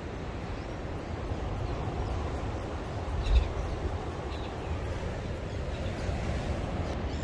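Wind buffeting the microphone as a steady, uneven low rumble, with one louder bump about three and a half seconds in.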